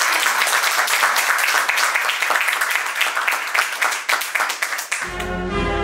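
Audience applauding, many hands clapping together. About five seconds in the applause cuts off abruptly and music begins.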